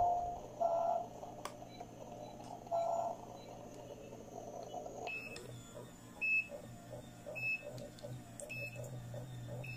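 Toy CT scanner playset's electronic sound effects. A couple of short beeps come in the first three seconds. From about five seconds in, a rhythmic sequence of short high beeps repeats roughly every half second to second over a low pulsing hum.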